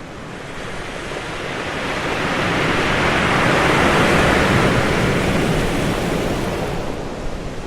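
Ocean wave breaking on the shore: the surf noise swells over about four seconds to a loud crash and then slowly washes away.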